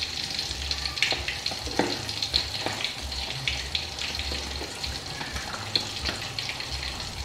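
Pindang fish dusted with flour, frying in hot oil in a wok: a steady sizzle with scattered small pops and crackles.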